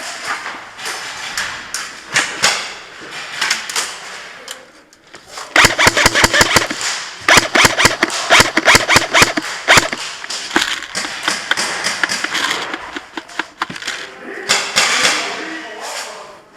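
Airsoft electric rifle firing on full auto in two rapid bursts of about ten shots a second, each shot a sharp crack. The bursts come about a third of the way in and run for several seconds, with scattered single shots and rustling of movement around them.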